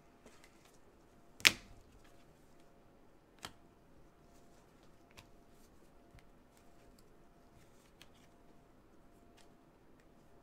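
Clicks and taps from handling trading cards and their packaging: one sharp, loud click about a second and a half in, a softer one about two seconds later, and a few faint clicks over a low steady room hum.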